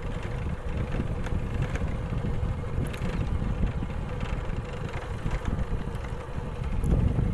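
Wind buffeting a phone's microphone while it moves along on a vehicle: a low, uneven rumble with a faint steady hum underneath, growing louder near the end.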